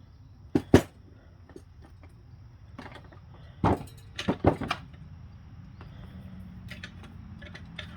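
Metal parts of a 4L65 automatic transmission knocking and clanking as they are pulled out and set down during teardown: two sharp knocks under a second in, then a quick cluster of clanks about halfway, with a faint low hum in the last couple of seconds.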